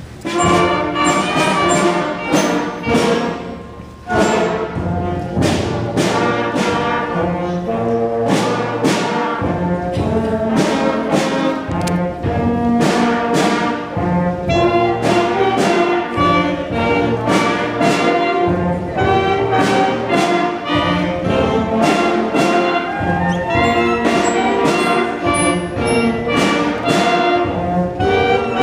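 A school band playing a brass-led piece over a steady beat, with a brief break about four seconds in.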